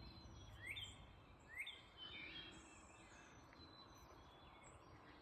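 Faint birdsong: a short rising chirp repeated a few times, about a second apart, over quiet background noise.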